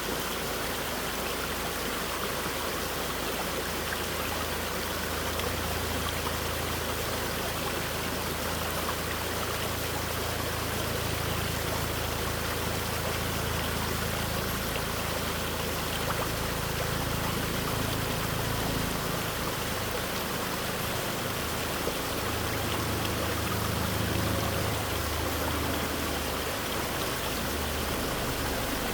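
Mountain stream water flowing and splashing over rocks, a steady rushing babble.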